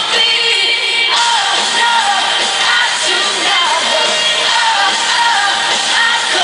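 Live pop-rock concert: a woman singing lead into a microphone over a full band, played loud through the PA.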